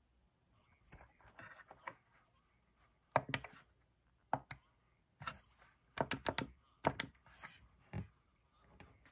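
Buttons on an AcuRite weather radio's keypad being pressed, giving short clicks in a dozen or so quick runs.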